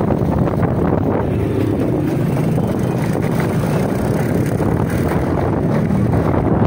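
Steady engine rumble of a moving vehicle, mixed with wind buffeting the microphone.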